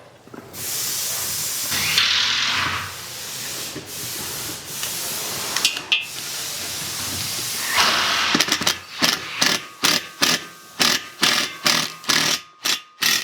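Cordless impact driver with a 5 mm hex bit driving a screw into a metal bracket: a steady run for several seconds, then a string of short bursts, about two or three a second, near the end.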